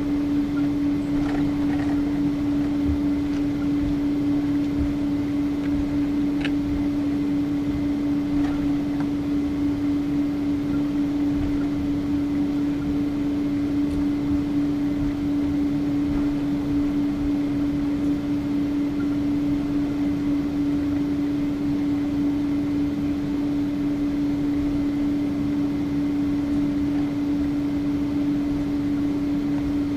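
Jet airliner cabin noise from inside the passenger cabin: a steady engine and airflow hum with one constant low tone, unchanging in level.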